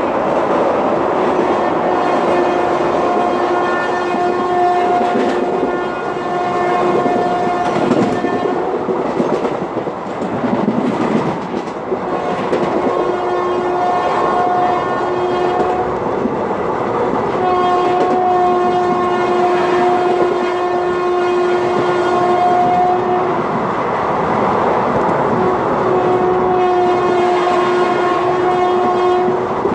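Indian Railways express train running fast through a station: steady rumble and wheel clatter of the coaches, with the locomotive's horn sounding in several long blasts of a few seconds each.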